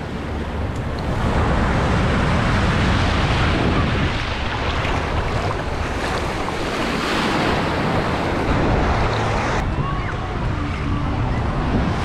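Gulf of Mexico surf breaking and washing around the shallows, swelling and easing as the waves come in, with wind rumbling on the microphone.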